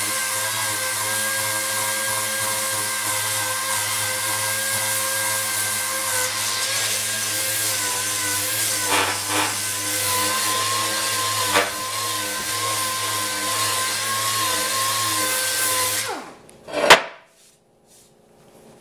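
Small dual-action (DA) sander running steadily with a constant whine as it sands down fine body filler (stopper). It stops about 16 seconds in, and a sharp knock follows.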